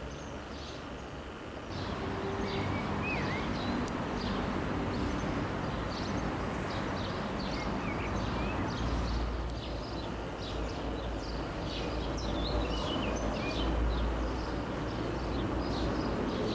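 Small birds chirping and twittering throughout over a steady rumbling background. A low engine hum is heard in the first two seconds, and the rumble grows louder about two seconds in.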